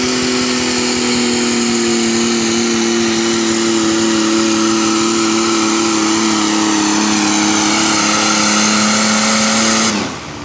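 Turbo diesel engine of a pro stock Cub Cadet pulling garden tractor working hard under full load while dragging a weight-transfer sled. It runs loud and steady, its pitch slowly sagging as the load builds, then drops away suddenly near the end as the throttle comes off to idle.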